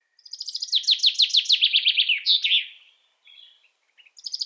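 A songbird singing a fast trill of repeated notes that falls in pitch and ends in a short flourish, lasting about two and a half seconds. After a brief pause, a new phrase begins near the end.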